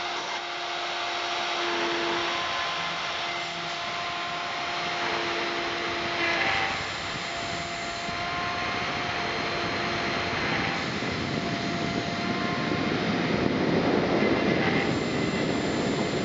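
Desktop CNC milling machine at work: the Kress spindle whines steadily under the hiss of the end mill cutting, while shorter tones from the axis stepper motors come and go and shift as the axes move. The cutting noise grows louder in the last few seconds.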